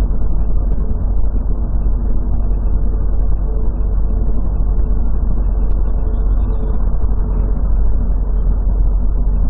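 Steady low rumble of a moving vehicle's engine and tyres on the road, heard from inside the cab.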